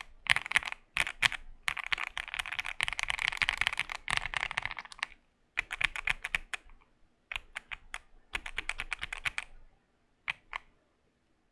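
Typing on a Keychron Q1 mechanical keyboard with Everglide Aqua King V3 linear switches, lightly lubed with Krytox 205g0, on an FR4 plate. Fast runs of keystrokes are broken by short pauses, and the typing ends with a last couple of key presses about ten seconds in.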